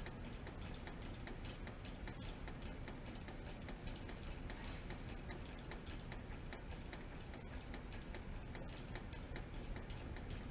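Light, irregular clicks and rustles from hands sorting and pulling embroidery floss tight on a card thread organizer.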